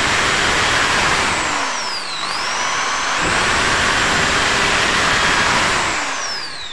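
AEG SB 500 RE corded impact drill in hammer mode drilling into a concrete block with a 6 mm masonry bit. The motor whine dips and picks back up about two seconds in, then winds down near the end as the trigger is released.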